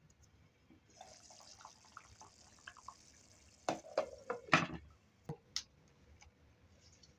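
Stew bubbling and hissing in a pot on a gas burner, with small popping blips. About four seconds in come a run of loud clinks and knocks as the pot's glass lid is handled and lifted, then a few lighter clicks.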